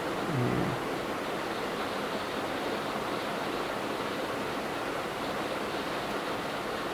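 SMD hot air rework station set to 300 blowing a steady hiss onto an RF connector on a phone's board to melt its solder. A brief low hum-like sound comes about half a second in.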